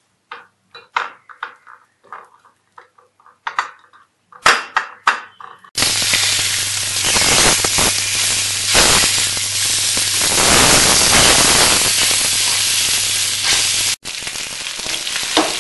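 Whole pomfret shallow-frying in hot oil in a nonstick pan: a loud steady sizzle that starts suddenly about six seconds in, breaks off near the end and comes back a little quieter. Before it, short soft clicks and taps from hands rubbing turmeric and salt onto the raw fish on a plate.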